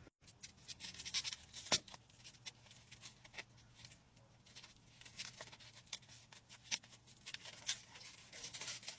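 Faint, scattered clicks and rustles of hands handling parts and wrapping around a newly fitted steering wheel, with two sharper clicks about two seconds in and near seven seconds.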